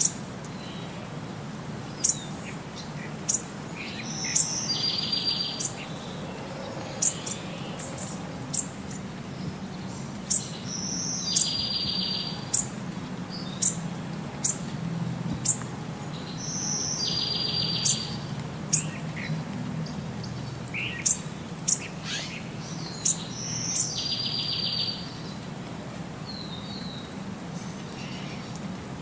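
Birdsong: a short rapid trill that comes back about every six seconds, with many sharp high chirps between, over a low steady hum.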